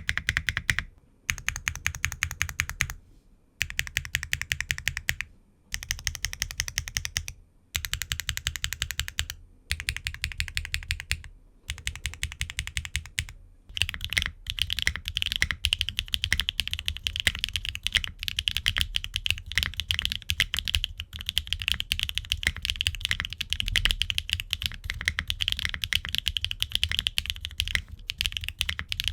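Mechanical keyboard with HMX Aster linear switches (Qwertykeys Neo65 Core Plus, aluminium case and plate, gasket mount, no foam, ABS double-shot Cherry-profile keycaps) being typed on. For the first half, short runs of rapid, evenly spaced keystrokes with brief pauses between them; then continuous fast typing to the end.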